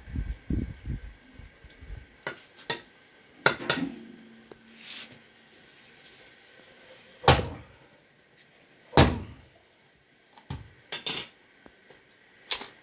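A blade chopping into a coconut's hard shell: a series of sharp, irregular hacks, the two heaviest a little past the middle.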